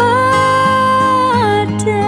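Closing phrase of a romantic pop ballad: a woman's voice holds one long sung note for about a second and a half, then slides down, over steady backing music.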